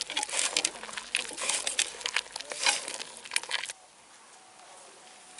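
Snails being scrubbed together by hand with coarse rock salt in a clay pot to strip off their slime: a dense crackle of shells and salt grinding and clicking against each other. It stops abruptly about three and a half seconds in, leaving only faint outdoor background.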